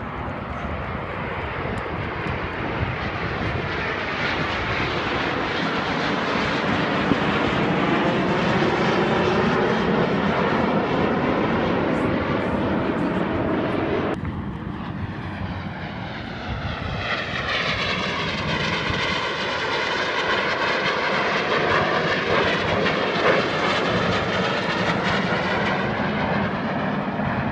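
Canadair CT-114 Tutor jets, each with a single turbojet, flying past overhead: a steady jet rush that swells as they pass. About halfway through the sound changes abruptly and a second pass builds and sweeps by.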